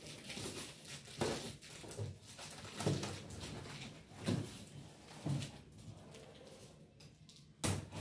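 Packing tape being picked at and peeled off a cardboard box: irregular scratching, crinkling and short tearing sounds, with one sharper rip near the end.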